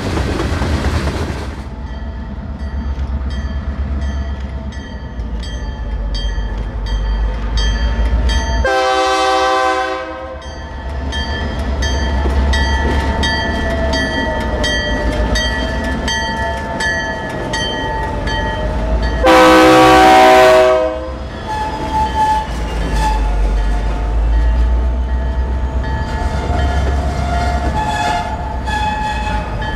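Diesel freight locomotive running with a deep steady rumble and sounding its air horn in two blasts of under two seconds each, about nine and nineteen seconds in, the second louder. A faint high ringing pulse repeats about twice a second under it.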